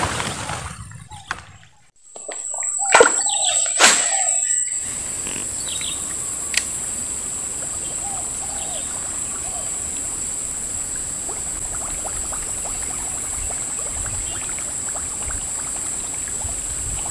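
Two sharp knocks about three and four seconds in, then a steady hiss with a thin high whine, over which faint short bird chirps come and go.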